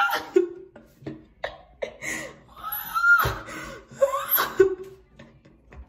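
Girls laughing hard in short, breathy bursts, with a high squeal about three seconds in.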